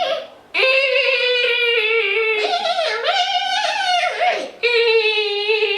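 A person imitating a horse's whinny with their voice: three long, high, wavering calls, the first starting about half a second in.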